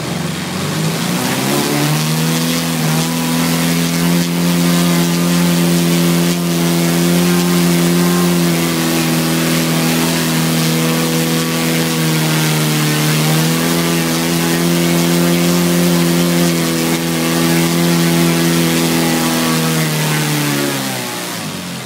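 Roto 85 FS NG four-stroke boxer twin model-aircraft engine running. It revs up over the first couple of seconds, holds a steady high speed with one brief dip partway through, then throttles back near the end.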